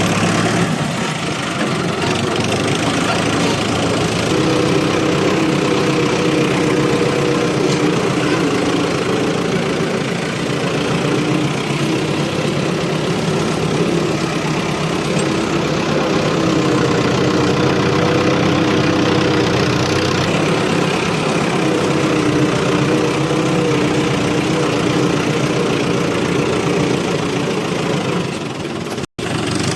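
Excavator's diesel engine running steadily while loading mud, a continuous drone with a wavering hum that sets in about four seconds in; the sound cuts out for an instant near the end.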